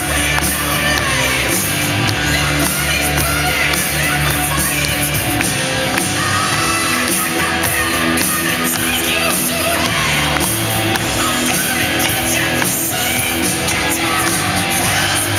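Loud music with singing played over a stadium sound system, with a steady bass line.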